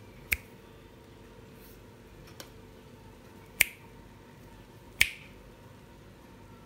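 Three crisp finger snaps: one just after the start, then two more about three seconds later, a second and a half apart.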